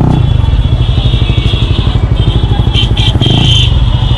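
Honda CBR125R/150R single-cylinder four-stroke engine idling through a Yoshimura R77 full exhaust system, with a short rise in revs about three seconds in.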